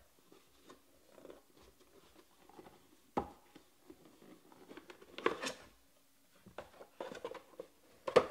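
A cardboard trading-card box and its foam insert being handled: scattered soft rubs and taps, a sharp knock about three seconds in, and a brief scraping rustle a couple of seconds later.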